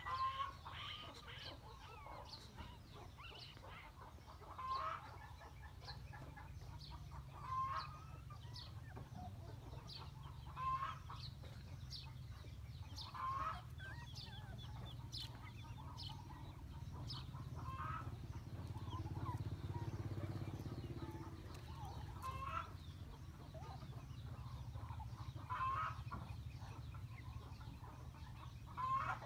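Chickens clucking, a short call every two to three seconds, with faint high chirps in between.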